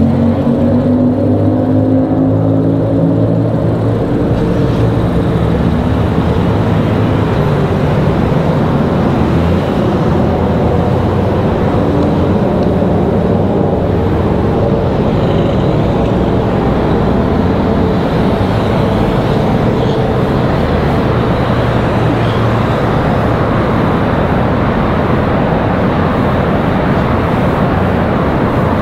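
Car on the move: steady engine and road noise, with the engine's pitch rising in the first couple of seconds as it speeds up.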